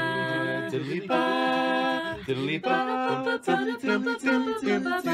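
Voices singing a cappella in harmony, holding long notes about a second each with short breaks between them.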